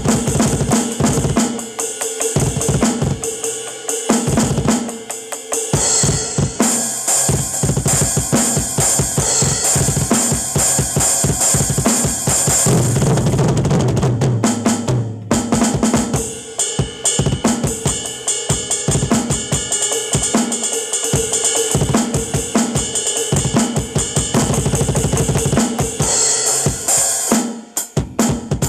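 Acoustic drum kit played in a fast, heavy solo: bass drum, snare and toms hit in quick runs under ringing cymbals. A dense run of rapid bass drum strokes leads into a brief break about halfway through.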